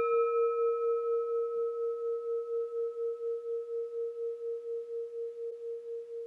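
A single struck bell ringing out and slowly fading, with one strong clear tone and fainter higher ones that die away sooner. Its loudness wavers in a steady pulse about five times a second.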